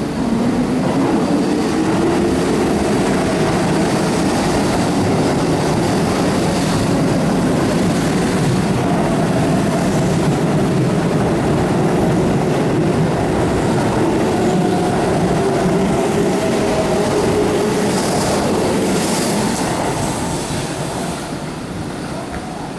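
Keihan 8000 series limited express train pulling out of the station. Its traction motors whine, rising in pitch over the first few seconds as it accelerates and then holding steady while the carriages run past with wheel-and-rail rumble. The sound fades near the end as the train clears the platform.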